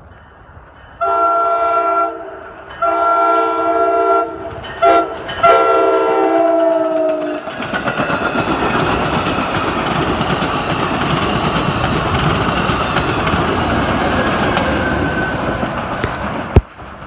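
NJ Transit commuter train horn sounding a chord of several tones in the grade-crossing pattern: long, long, short, long. The last blast drops in pitch as the train reaches the crossing. Then the rumble and clatter of the bilevel cars rolling past over the crossing, with one sharp knock near the end.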